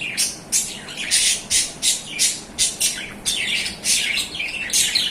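A pair of adult budgerigars calling: a fast run of short, harsh chirps and squawks, about three a second.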